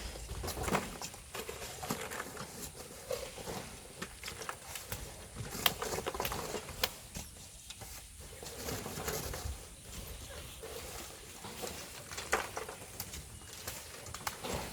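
Irregular knocks and scrapes of hand tools working volcanic sand and stone, a few sharp strikes standing out over a low rumble.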